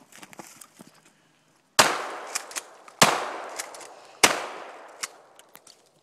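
Three Browning 12-gauge shotgun shots fired into a tree trunk, about a second and a quarter apart, each trailing off in echo.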